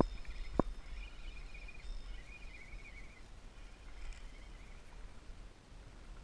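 Low wind rumble on the microphone, a single sharp knock about half a second in, and faint high chirping on and off.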